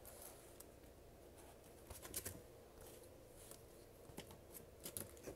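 Near silence with a few faint, short rustles and ticks of comic books being handled and swapped, around two seconds in and again near the end.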